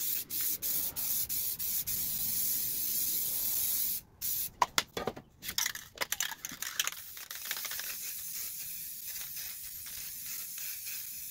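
Aerosol spray paint cans hissing: a few short spurts, then a steady spray that stops about four seconds in. A few sharp clicks follow, then a second, somewhat quieter steady spray runs from about six seconds on.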